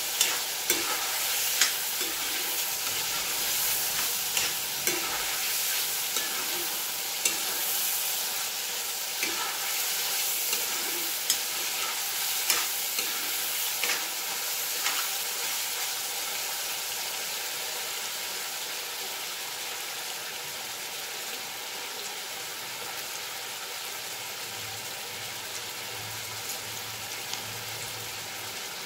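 Chicken and onions sizzling in a cast-iron kadai, with a spatula scraping and clicking against the pan as it is stirred. The stirring stops about halfway through, leaving only the steady sizzle.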